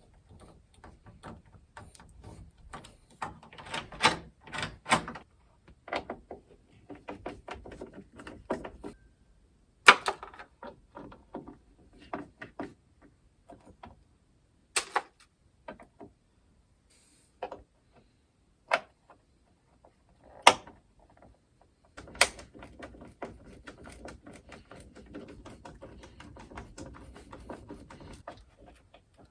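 Door knob and latch hardware being worked by hand: a string of sharp metal clicks and knocks, several of them loud, then a long run of rapid small clicks near the end.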